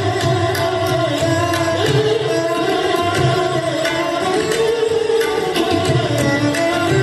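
Esraj, a bowed Indian string instrument, playing a melody with gliding notes, accompanied by tabla strokes.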